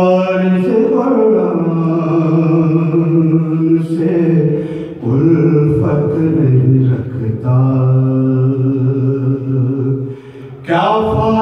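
A man's solo voice singing an Urdu mourning kalaam in long, drawn-out phrases, with short pauses for breath about five and ten seconds in.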